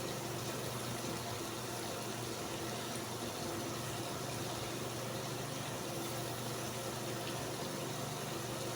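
Pot of soup stock simmering on the stove: a steady, even bubbling hiss with a faint hum underneath.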